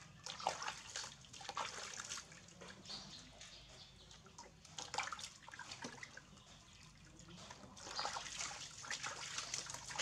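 Water splashing and sloshing in a plastic basin as a baby monkey is scrubbed and rinsed by hand, in irregular bursts in the first two seconds, about five seconds in, and more busily near the end.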